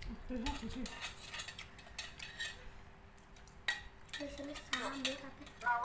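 Metal spoons clinking and scraping irregularly against a bowl of bakso (meatball soup) as it is eaten, with a few short murmurs of voice.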